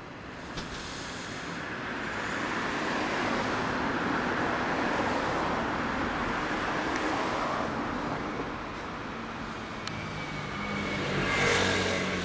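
Road traffic: a vehicle passing by, its sound swelling over a few seconds and fading away, then another vehicle passing near the end.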